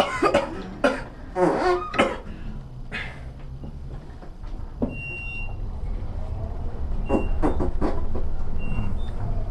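Fake fart sound from a prank noisemaker: a rapid, sputtering run of pitched pulses near the end. People's voices break out in the first two seconds, over a steady low hum.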